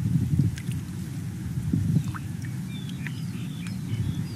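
Muddy water sloshing and dripping around a woven bamboo fishing basket worked in a rice-paddy channel, over a low uneven rumble, with a few faint high chirps scattered through.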